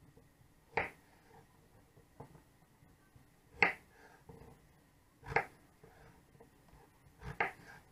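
Kitchen knife cutting small peeled potatoes on a wooden cutting board, the blade knocking sharply on the board with each cut, four distinct knocks a second or two apart with fainter taps between.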